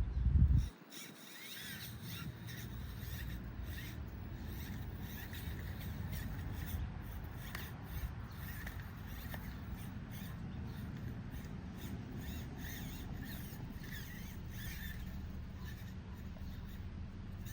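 1/43-scale micro RC crawler driving over rough obstacles: a steady low running noise with many small clicks and scrapes, after a thump at the start.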